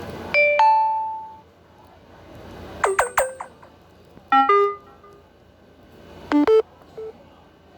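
Four short Samsung Galaxy notification chimes played one after another, each a quick pair of electronic tones. The first rings on for about a second, the second pair swoops down in pitch, and the last two are crisp two-note blips.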